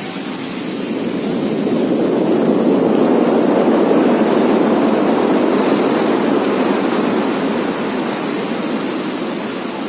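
Storm wind gusting, a loud rushing noise that builds over the first few seconds and then slowly dies down.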